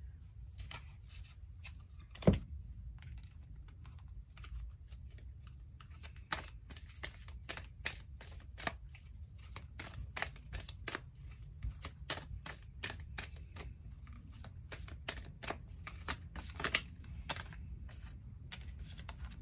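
A deck of tarot/oracle cards being handled and shuffled by hand: a long run of irregular crisp clicks and taps, two or three a second, with one louder knock about two seconds in.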